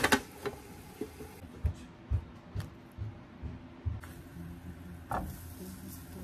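A frying-pan lid clatters onto the pan, followed by a series of dull low knocks of cookware being handled on the hob and a single sharp tap near the end.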